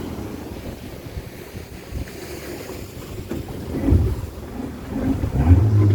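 Wind buffeting the microphone over water noise on a small open boat, with a knock about four seconds in and a low steady hum starting near the end.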